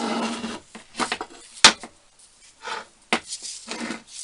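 Several sharp knocks and clatters with short rubbing or scraping sounds between them, from small tools and cleaning items such as brushes and bottles being handled and set down on a workbench.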